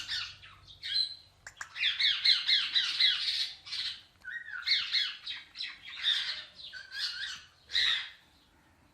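A pet parrot squawking in quick runs of repeated harsh calls, several runs with short pauses between them, and one last single call near the end.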